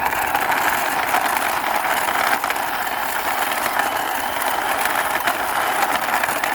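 Plastic wheels of a toy car rolling steadily as it is pushed by hand across a hard surface, a continuous grating rumble with faint clicks.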